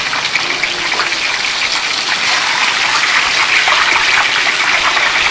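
Hot oil sizzling and bubbling steadily in a large wok as oyster fritters deep-fry.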